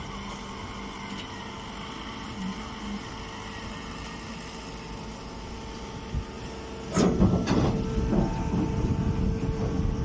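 Hydraulic straw baler's power unit running, a steady hum made of several fixed tones. About seven seconds in, a louder stretch of knocks and scraping clatter begins and runs on.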